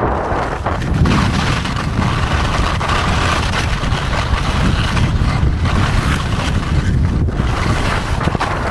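Strong wind buffeting the microphone in a low rumble, over the steady hiss and scrape of skis running fast across hard, wind-packed snow while kite skiing.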